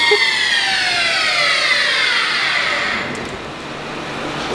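Hurco CNC vertical milling machine's spindle whine falling steadily in pitch as the spindle spins down, fading over about three seconds.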